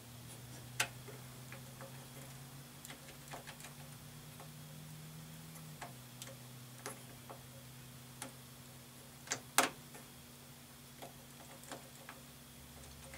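Irregular small clicks and taps from handling a fluorescent light starter that is stuck in its socket, with two sharper clicks, one near the start and one about two-thirds through. A steady low electrical hum runs underneath.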